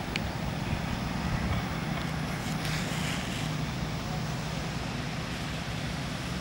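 Steady low outdoor rumble and hiss, with a faint click just after the start.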